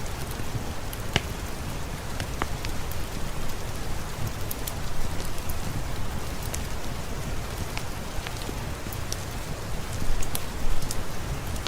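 Steady rainfall with scattered sharp crackles from a fireplace.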